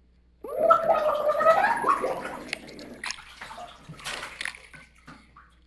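A high, wavering vocal sound, gurgled and muffled by water, lasting about two seconds. It is followed by scattered water splashes and sloshing near the surface.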